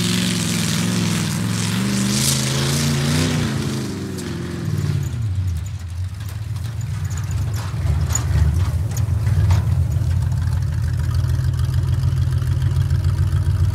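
1974 Ford F-250 pickup engine running in fourth gear, its pitch wavering under throttle, then dropping about four seconds in. It then runs low and steady and grows louder as the truck comes close, with a few sharp clicks along the way.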